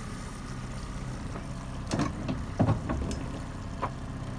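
Boat engine idling with a steady low hum, with a few sharp knocks and clatters of gear on the boat about halfway through.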